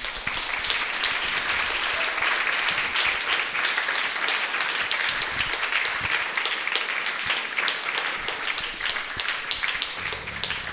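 Audience applauding: many people clapping steadily at the end of a talk, easing slightly near the end.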